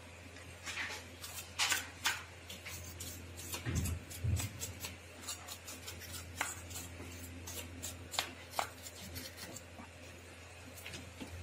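Scattered clicks and rubbing of hands handling and cleaning a plastic laser toner cartridge, with two dull knocks about four seconds in. A steady low hum runs underneath.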